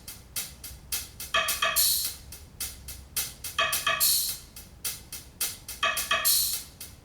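Percussion loop played as the left-channel signal of a stereo balance check: quick, sharp, clicky hits a few times a second, with a cymbal or hi-hat splash about every two seconds.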